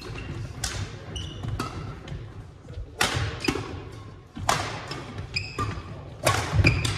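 Badminton rally: about seven sharp cracks of rackets striking the shuttlecock at irregular intervals, with sneakers squeaking and feet thudding on the hardwood floor.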